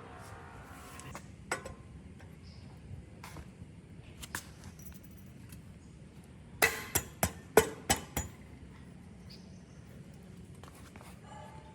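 Hard clinks and taps from parts or tools being handled during a bicycle restoration. Scattered single clicks are broken by a quick run of about six sharp strikes a little past the middle, over a steady low hum.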